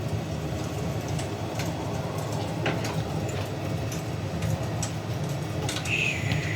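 Fire crackling, with scattered sharp pops over a steady low rumble; a thin, wavering whistle starts near the end.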